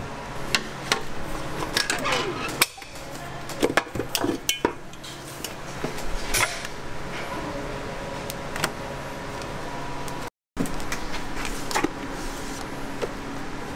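Silicone spatula scraping and knocking against a stainless-steel mixer bowl and whisk as whipped cream is scooped out into a plastic food pan: a run of sharp clatters and knocks, busiest in the first few seconds, over a steady kitchen hum.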